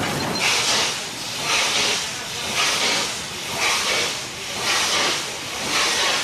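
Steam locomotive working slowly, steam blasting from around its cylinders in hissing bursts about once a second.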